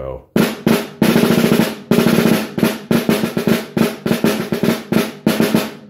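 A 14-inch snare drum played with wooden sticks: a rudimental passage of open rolls, each roll a run of separate strokes that can be heard one by one, between accented single notes.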